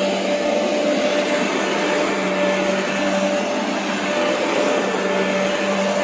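Royal upright vacuum cleaner running on carpet: a steady motor tone over the rush of air and brush roll.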